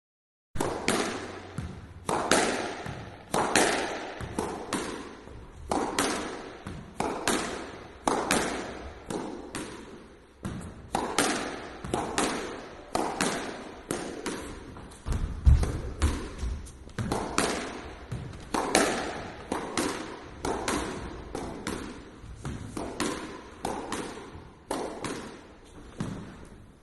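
A squash ball hit again and again by a lone player's racket against the court walls: sharp smacks, about two a second, each ringing briefly in the court. A heavier low thud comes about halfway through.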